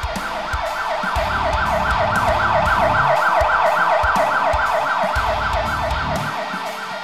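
Electronic emergency-vehicle siren in fast yelp mode, its pitch sweeping up and down about five times a second. It swells in the middle and fades near the end, over background music with a steady drum beat.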